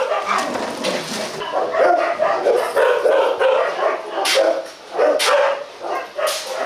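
Two Rottweilers vocalising as they play-fight, with short sharp barks about four, five and six seconds in.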